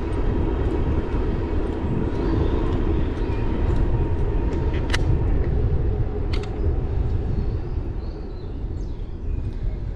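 Wind buffeting a GoPro microphone and tyre rumble from an e-bike riding along an asphalt bicycle path, steady throughout, with a couple of sharp clicks about halfway through.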